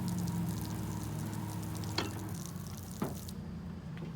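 Pressure washer running, its spray hissing and spattering as the water lands, over a steady low hum from the machine. Two sharp clicks come about two and three seconds in, and the spray hiss stops shortly after the second.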